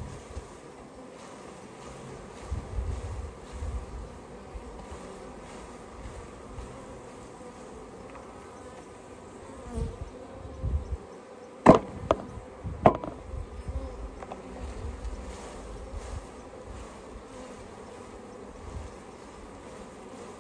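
Honey bees buzzing steadily in a mass as they are shaken from a package into a hive. A little past halfway come three sharp knocks, the first and last loudest, as the package is banged to drop the clinging bees to its bottom.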